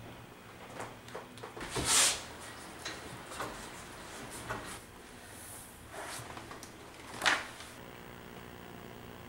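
Handling noises at an etching press as damp printing paper is laid over the plate and the plate is run through the press: a series of soft paper rustles and light knocks, the loudest about two seconds in and again about seven seconds in.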